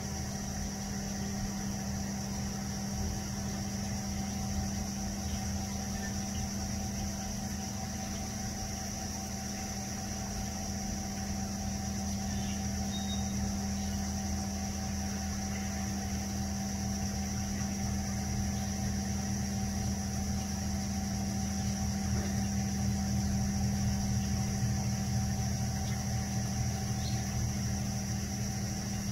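A machine's engine running steadily at one speed, a low drone with a thin high whine above it, a little louder for a few seconds past the middle.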